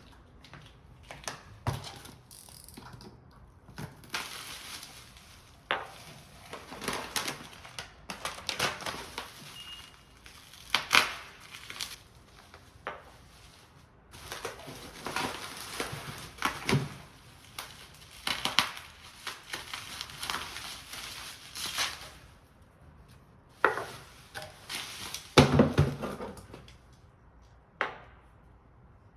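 Packaging being handled: crinkling and rustling in long stretches, with scattered knocks and clicks, the loudest about eleven seconds in and again near the end.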